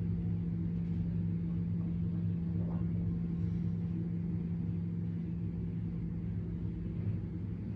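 Steady low mechanical hum with a constant low drone, even in level throughout.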